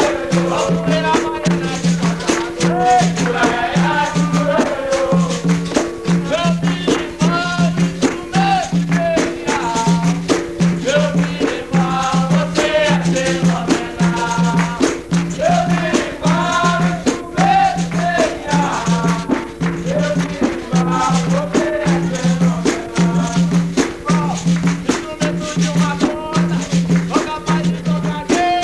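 Capoeira roda music: berimbaus playing a steady, repeating rhythm that switches between two low notes, shaken caxixi rattles and sharp strikes on top, with singing over it.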